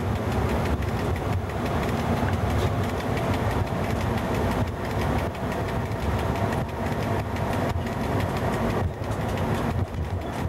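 FS E.656 electric locomotive running at speed, heard from inside its cab: a steady low rumble of wheels on the rails with faint fine ticks from the track.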